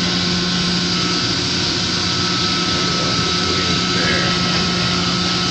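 Steady drone of running HVAC plant-room machinery, with a constant low hum and a faint steady high whine.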